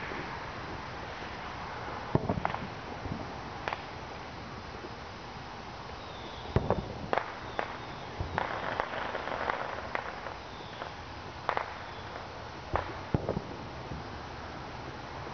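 Fireworks going off: a scattered series of sharp pops and bangs, about a dozen, with a denser stretch of crackling about eight to ten seconds in.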